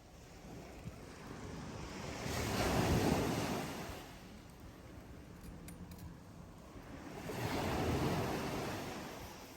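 Outdoor rushing noise that swells and fades twice, about five seconds apart, with a faint tick or two in between.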